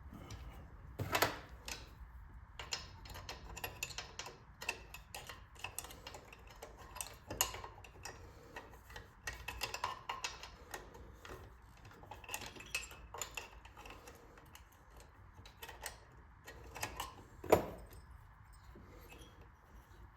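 Small metal clicks and clinks, irregular and scattered, as hand tools work on small engine parts, with two louder knocks, one about a second in and one near the end.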